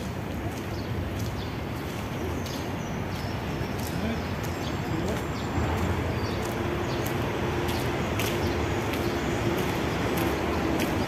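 City park ambience: a steady hum of distant traffic with faint voices and birds, and scattered light clicks. A steady low tone joins just past halfway.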